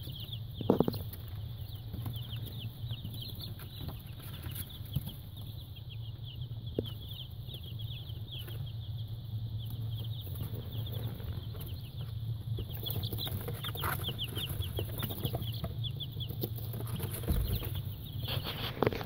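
A brood of baby chicks peeping without pause, many short high chirps overlapping, over a steady low hum. A single loud bump comes about a second in.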